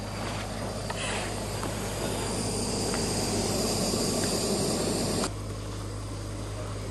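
A steady hiss that grows louder over a few seconds, then cuts off abruptly about five seconds in, over a constant low hum.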